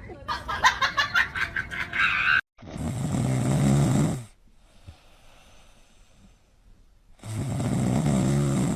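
A sleeping pet snoring: two long snores about four seconds apart, with a quiet gap between. Before them comes a rapid run of short pulses lasting about two seconds.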